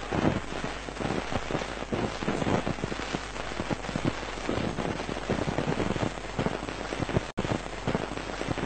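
Audience applauding, a dense clatter of many hands clapping, with an instant's dropout about seven seconds in.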